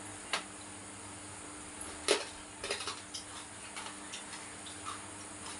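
Scattered small clicks and knocks of people eating with their hands from plates, the sharpest about two seconds in with a quick cluster just after, over a faint steady hum.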